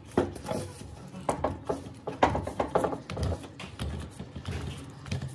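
Irregular knocks and metallic clinks of a rusty cast-iron breast drill's parts being handled and set against each other and the wooden board, several sharp ones a second, over a low steady hum.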